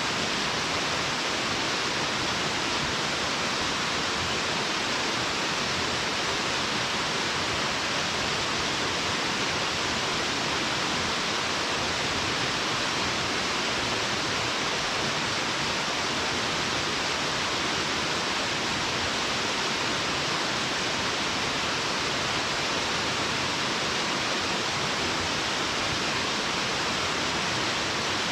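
A waterfall's steady rush of falling water, an even, unbroken hiss with most of its weight in the mid and upper range.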